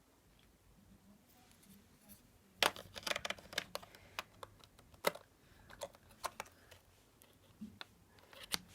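Irregular light clicks and taps of hands handling an HP Omnibook XE3 laptop's plastic case and parts during repair, starting about two and a half seconds in.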